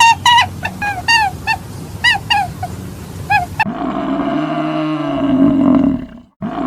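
A quick run of short, high-pitched calls from a small animal or bird, several a second, then a cut to a large bovine's long, low bellow; it breaks off briefly and a second bellow begins near the end.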